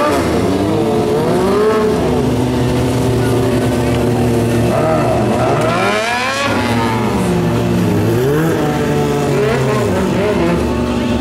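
Stunt motorcycle's engine revved up and down over and over as the rider throws the bike through tricks, its pitch swooping every second or two with one big climb about halfway through.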